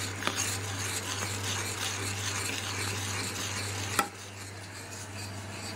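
A metal spoon stirring hot cream with melting cheese in a stainless steel saucepan, scraping and swishing over a light simmering hiss, with a steady low hum underneath. A sharp click about four seconds in, after which it is quieter.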